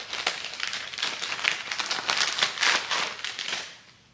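Plastic packaging crinkling and crackling as it is handled and pulled open to get the gloves out, dying away near the end.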